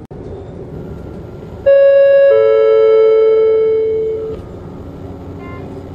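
Two-tone falling ding-dong chime from a train's passenger address system, sounding about two seconds in and fading away over about two seconds: the gong ahead of a next-stop announcement. A steady hum from the railcar's interior runs underneath.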